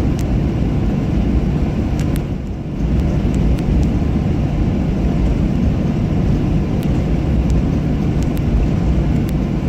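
Jet airliner cabin noise: a steady low engine rumble with occasional sharp clicks and rattles from the cabin.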